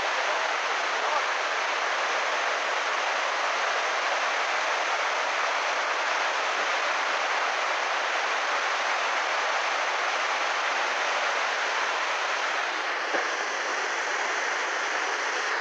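Steady, unbroken rushing noise of heavy rain and floodwater.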